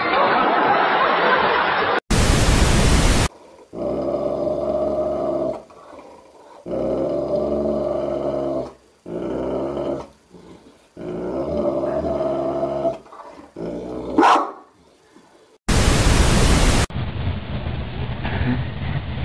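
A dog growling in several long pitched stretches of about two seconds each, with short pauses between, and a quick rising squeal near the end. Loud bursts of hiss cut in before and after the growling.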